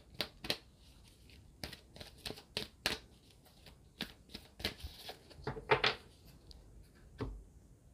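A deck of oracle cards being shuffled by hand: a run of quick, irregular card snaps and taps that stops near the end.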